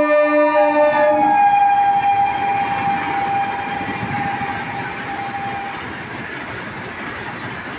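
Train horn blaring, its pitch dropping as it passes and cutting off about a second in. Then the Purva Express coaches rush past at speed in a steady roar of wheels on rail, with a thin high ringing that fades out around six seconds in.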